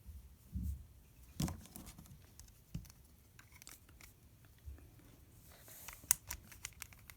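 LEGO puzzle box being handled: plastic bricks and parts clicking, tapping and scraping as pieces are pushed and slid, with scattered sharp clicks and a few soft low bumps.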